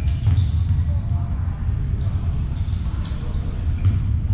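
Basketball game play on a hardwood court: the ball bouncing and bursts of short, high sneaker squeaks, over a steady low rumble in the hall.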